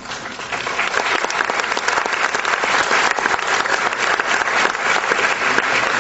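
Audience applauding, a dense patter of many hands clapping that swells over the first second and then holds steady.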